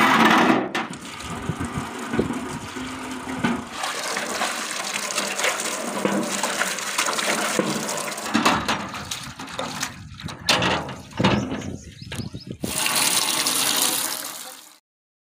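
Water running and splashing into a galvanized steel tub as it fills, a steady rushing splash with a couple of brief breaks late on, cutting off suddenly near the end.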